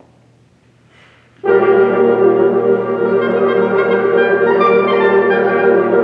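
Chamber wind ensemble of flutes, oboes, clarinets, horns and bassoons entering together about a second and a half in, playing sustained chords at the opening of the piece.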